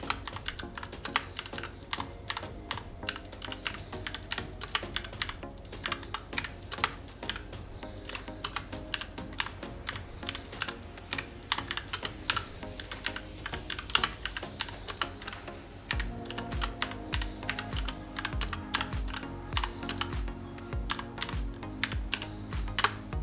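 Rapid, continuous typing on the Portronics Hydra 10 mechanical keyboard with red switches: a dense, irregular clatter of keystrokes. Background music plays underneath, with a bass beat coming in about two-thirds of the way through.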